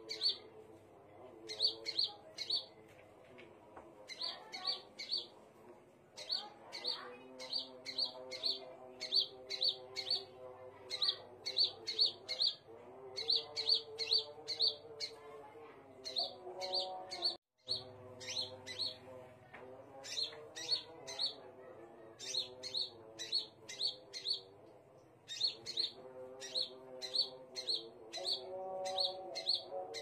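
Scarlet minivet (sepah raja) calling: short, sharp, high chirps in quick bursts of three to five, repeated about once a second.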